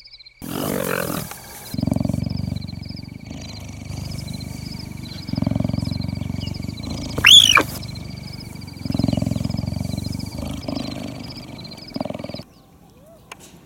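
Intro sound effect of a big cat growling and roaring in four long stretches over a steady high trill, with one loud high screech that rises and falls about seven seconds in. The sound cuts off suddenly near the end.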